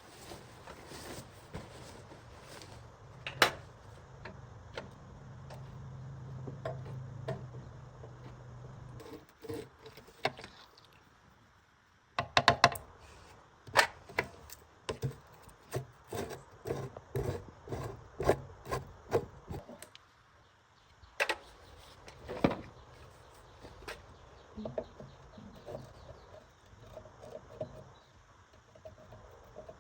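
Tools and metal parts being handled during a generator repair: a low hum for the first nine seconds or so, then a run of sharp knocks and taps, one or two a second, with rubbing and scraping in between.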